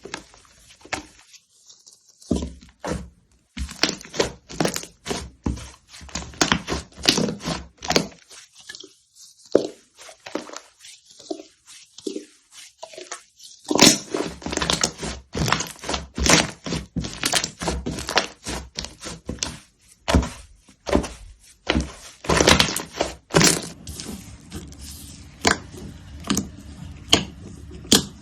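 Slime being pressed and squished by hand, giving a rapid, irregular run of sharp clicks, crackles and pops, which thins out for a few seconds in the middle.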